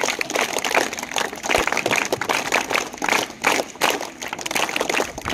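An audience clapping, many sharp claps running together into applause.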